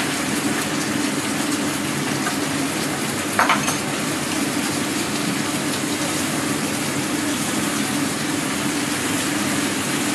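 Vegetables sizzling steadily as they are stir-fried in a wok over a gas flame, with a spatula stirring through them. A short metallic clink about three and a half seconds in.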